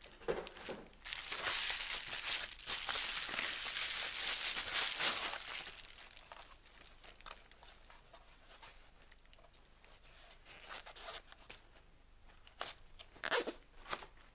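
Camera packaging being handled and pulled away, crinkling and tearing for about five seconds. Then quieter rustling with a few sharp clicks near the end.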